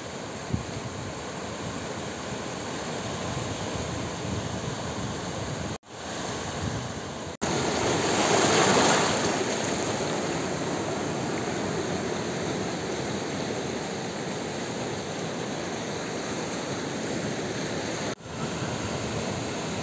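Sea surf washing on a shore, a steady rush of water that swells as a wave breaks about eight seconds in. The sound cuts out for an instant three times.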